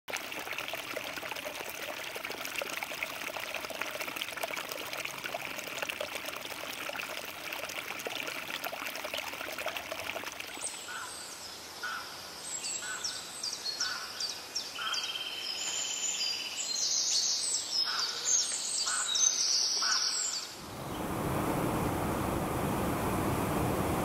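A small woodland stream trickles over a little drop into a shallow pool. About ten seconds in, birds start calling in short repeated notes over faint water sound. Near the end the sound changes abruptly to the steady rush of a waterfall pouring into a pool.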